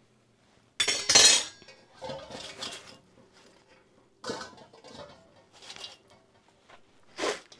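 Stainless steel kitchenware clattering and clinking: a slotted metal skimmer knocking against a steel colander of fried plantain chips, and the colander being lifted and moved. The loudest clash comes about a second in, followed by several smaller clinks.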